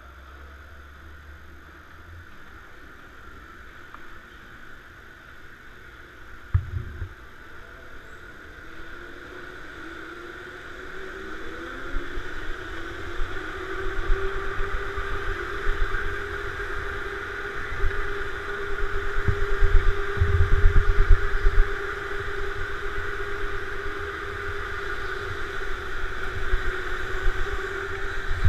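Go-kart motor whining, rising in pitch as the kart pulls away and then holding steady at speed. Low rumbling and a knock come with it, the rumbling loudest about two-thirds of the way in.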